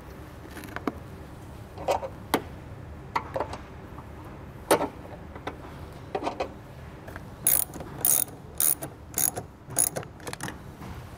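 Wrench tightening the nut on a car's jump-start post, over a cable eyelet: scattered metallic clicks, then a run of sharper clicks about two a second from about halfway through.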